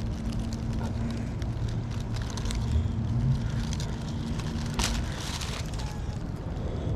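Low rumbling noise outdoors, typical of wind on the microphone, with a steady low hum that stops about five seconds in and a few faint clicks.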